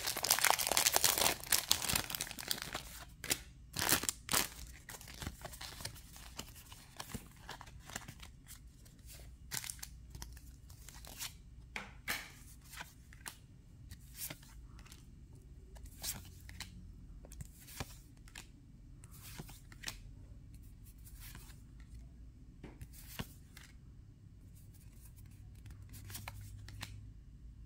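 A foil Pokémon booster pack wrapper crinkling as it is torn open for the first three seconds or so, then the trading cards inside being slid and flicked through one at a time, with a soft click about once a second.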